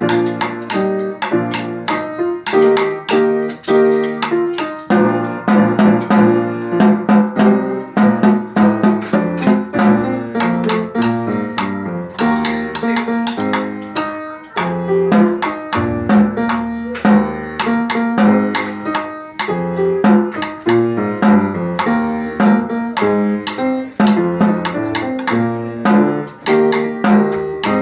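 Ensemble music at a steady beat, with snare drum strokes over pitched piano and plucked-string parts.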